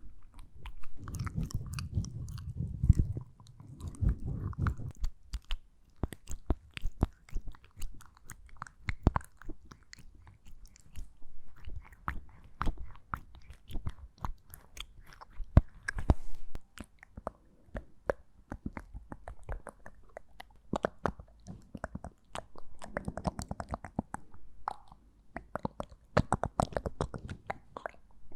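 Close-miked ASMR mouth sounds: a dense, irregular run of wet clicks and smacks, with fuller, lower-pitched mouth noises about a second in and again near the end.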